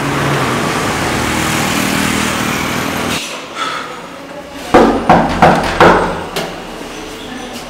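A steady rush like passing street traffic for about three seconds, then four loud knocks on a door in quick succession, followed by a few fainter sounds.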